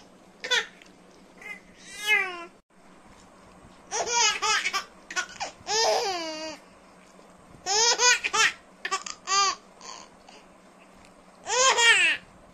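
A baby giggling: bursts of high-pitched laughter, each a second or less with falling pitch, coming about every one to two seconds with short pauses between.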